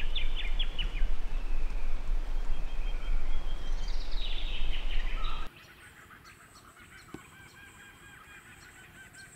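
Steady low rumble of wind on the microphone with wild birds calling over it: a quick run of high notes at the start and another call about four seconds in. About five and a half seconds in it drops to a much quieter scene with faint, repeated birdsong and a single click.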